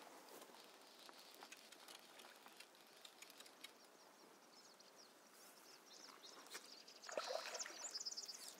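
Near-silent streamside outdoor ambience with faint bird chirps. Around seven seconds in comes a brief, louder rustling, crackling noise lasting a second or so.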